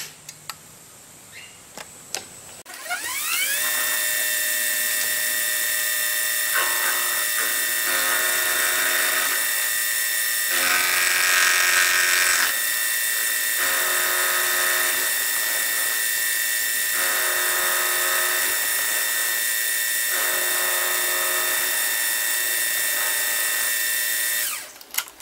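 Milling machine spindle starting up about three seconds in with a rising whine, then running steadily as an end mill cuts the end of a rough slide-valve casting. The cutting noise comes and goes in stretches of a few seconds as the cutter is fed across. The spindle shuts off near the end.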